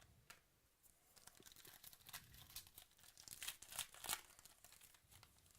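Trading card pack wrapper being torn open and crinkled: a run of quick crackles that starts about a second in and is loudest near four seconds.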